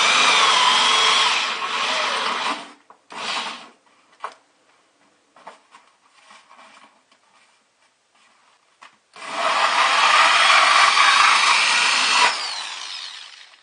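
Power drill with a hole saw cutting a hole through a bucket's liner. There are two long runs of the drill, at the start and about nine seconds in, and a short burst about three seconds in, with small knocks and handling noises between them.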